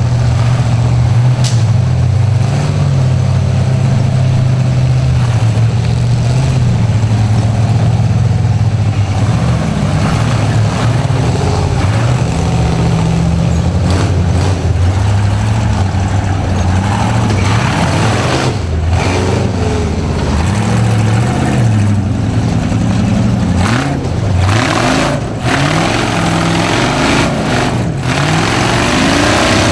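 Rock buggy engine running at a steady low pitch, then revved up and down repeatedly as it crawls up over boulders, with a harder rising rev near the end.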